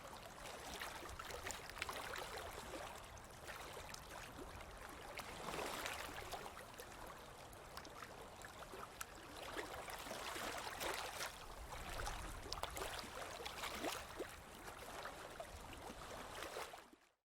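Lake water lapping and splashing gently, with small splashes and trickles, swelling and easing every few seconds. It fades out near the end.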